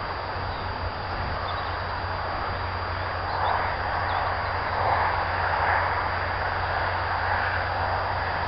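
Massey Ferguson 6475 tractor engine running steadily under load while ploughing, swelling louder for a couple of seconds around the middle.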